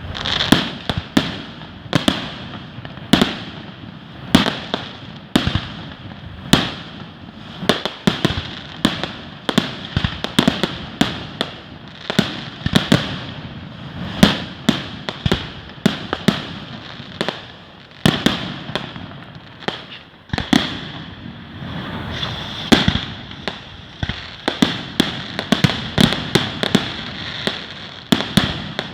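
Fireworks going off in a rapid, continuous barrage: many sharp bangs and pops, several a second, with a hissing haze between them.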